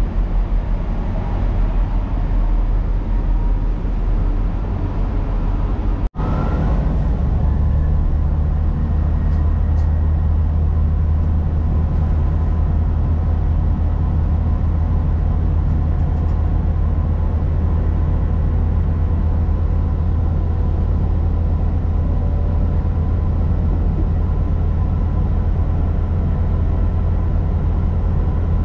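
Interior sound of a GWR Class 166 diesel multiple unit: its underfloor Perkins diesel engines running with a steady low drone as the train moves along. The sound cuts out for an instant about six seconds in.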